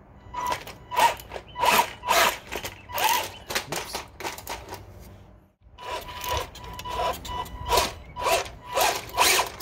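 BWINE Q111 RC tank's electric drive motor and tracks working in a run of short surges, about two a second, over a thin steady whine, as the tank claws at the firewood logs, rears up and flips over. The sound breaks off briefly just past halfway.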